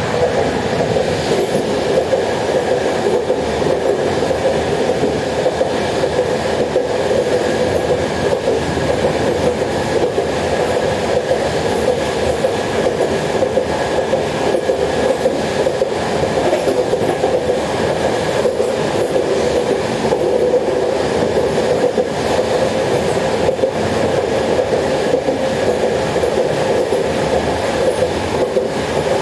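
Interior of a fast-moving train carriage: a steady, loud rumble of wheels on rails, with a faint steady high tone running through it.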